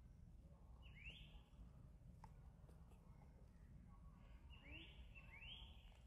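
Faint high chirping calls, each a short rising sweep: one about a second in, then three in quick succession near the end, over a low steady background rumble.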